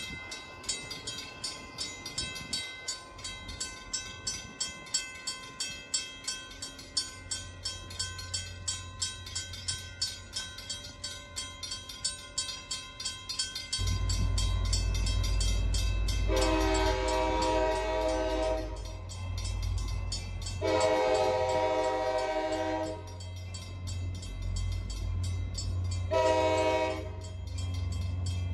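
Mechanical crossing bell ringing at about three strikes a second as the train approaches, with a low rumble coming in about halfway. Then a locomotive horn blows the grade-crossing signal: two long blasts, a short one, and a final long one starting near the end.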